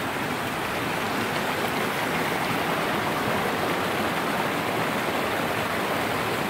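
Small rocky mountain stream rushing and splashing over rocks in a steady, unbroken rush of water.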